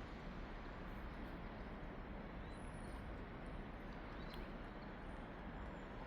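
Steady low outdoor background hum with a few faint, brief high chirps.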